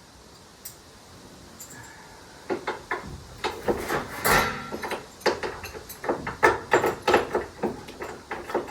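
Ratchet tie-down strap being worked and tightened: a quick run of irregular metallic clicks and clanks that starts about two and a half seconds in, with one louder knock a little past the middle.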